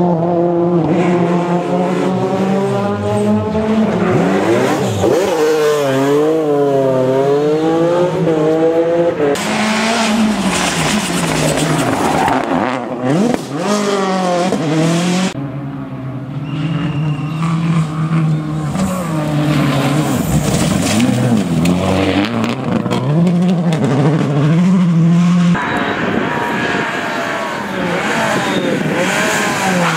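Rally cars driven hard on a stage, engines revving up and dropping repeatedly through gear changes, with tyre squeal at times. Several passes are cut together, the engine note changing abruptly a few times.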